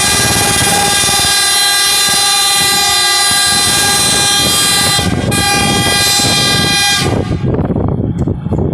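A rail vehicle's horn sounding one long blast, with a very brief break about five seconds in, then cutting off about seven seconds in, leaving a low engine rumble.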